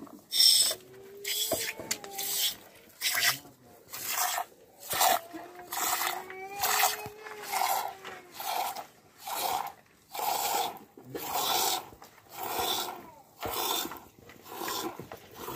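Milk squirting from a water buffalo's teat into a small steel cup during hand milking, one squirt about every two-thirds of a second in a steady rhythm.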